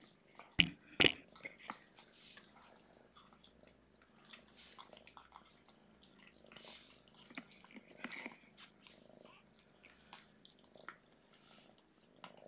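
Two kittens eating wet cat food from a bowl: many small wet chewing and smacking clicks, over the tabby-and-white kitten's faint purring. Two sharp knocks about half a second and a second in.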